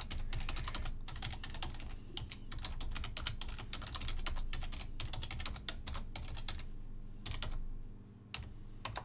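Computer keyboard typing: a quick, uneven run of keystrokes that breaks off about seven seconds in, then a few more keys near the end.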